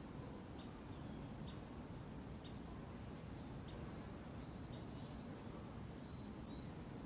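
Small birds giving short, scattered chirps over a low steady background rumble of outdoor ambience.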